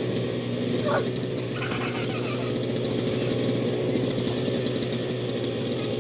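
An engine running steadily, with a short high gliding call about a second in.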